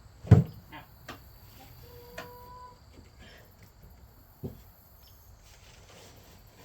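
Someone rummaging through tools: a heavy thump about a third of a second in, scattered light clicks and knocks, a brief squeak about two seconds in, and another thump about four and a half seconds in. Crickets chirr steadily behind.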